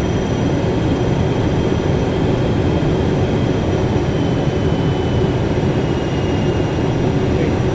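Steady cockpit noise of a private jet on final approach: a dense low rush of engine and airflow with a faint high whine above it.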